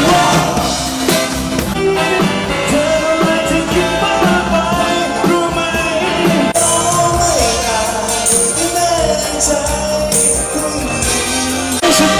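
Live band playing a Thai pop song, with a singer's voice carrying the melody over the band.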